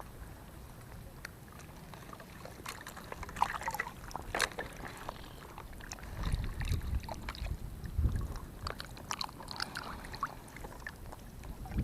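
Water lapping and splashing lightly around a person wading, with a few sharper splashes about three to four seconds in and again later on.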